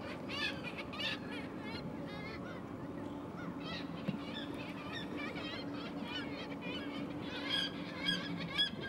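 A seabird colony on a sea cliff calling: many short, overlapping high calls, growing denser near the end. A steady low boat-engine hum runs beneath.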